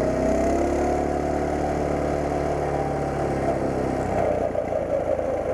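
Coleman CT200U mini bike's single-cylinder four-stroke engine running steadily, rising a little in pitch early on and turning rougher about four seconds in.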